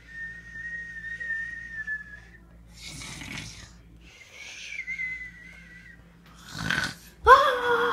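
A person whistling long, nearly steady high notes, with a breathy intake between them. Near the end, a loud voice cry that falls in pitch.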